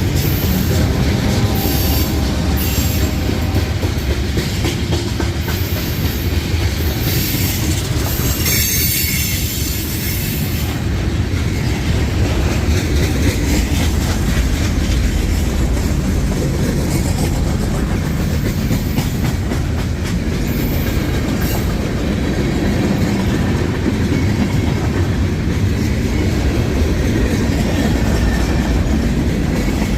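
Freight train cars rolling past on steel rails, a steady loud rumble with wheel clatter. Brief high-pitched wheel squeals come several times in the first ten seconds and again about two-thirds of the way through.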